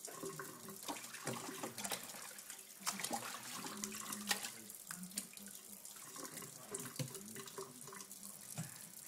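Kitchen faucet running into a stainless steel sink, with scattered splashes as a puppy is rinsed under the stream.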